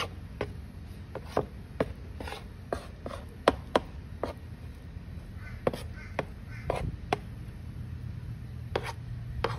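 Metal garden trowel patting and scraping damp chick-feed mash in a plastic tub, with irregular sharp taps and knocks as the blade strikes the mash and the tub's bottom.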